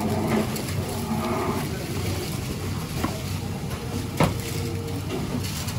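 A steady low hum under a busy kitchen background, with one sharp knock about four seconds in.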